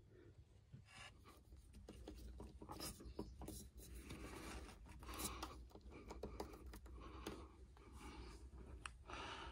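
Faint handling noise: irregular rubbing and scratching with scattered light clicks, getting a little louder after the first second or two.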